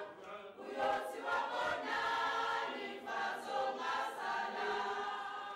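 A choir of women and men singing together in sustained phrases, with short breaks between them; the singing trails off near the end.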